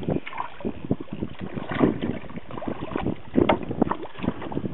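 Water splashing and slapping at the side of a canoe as a hooked lake trout is brought alongside, with irregular knocks and wind on the microphone.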